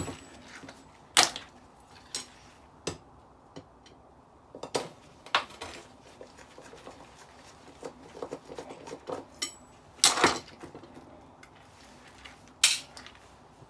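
Small stainless steel and aluminium parts of decking lights clinking and clattering as they are taken apart by hand. Separate sharp clinks come a few seconds apart: the loudest about a second in, around five seconds, around ten seconds and near the end.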